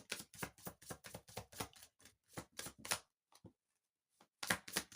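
Tarot cards being shuffled by hand: a quick run of card flicks that stops about three seconds in and starts again near the end.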